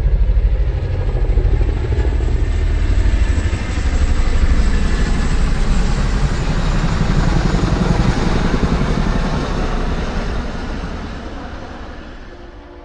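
A heavy vehicle rumbling, loud and steady with a fast low pulsing, then fading away over the last few seconds.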